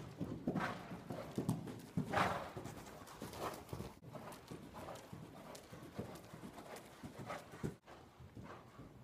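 Hoofbeats of a horse being ridden around an indoor arena, dull irregular thuds on sand footing, loudest in the first couple of seconds.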